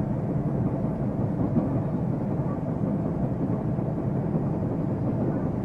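JR Central 373 series electric multiple unit heard from inside the car while running, a steady rumble of wheels on rail and car body.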